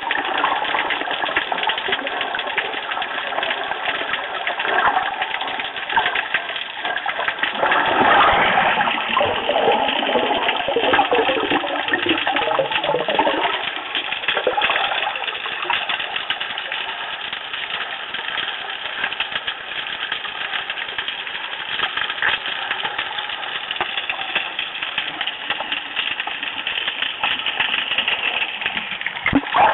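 Water sound picked up underwater by an action camera: a steady muffled rush with a faint hum and many small crackling clicks. A louder, lower swirl of moving water runs from about eight to thirteen seconds in.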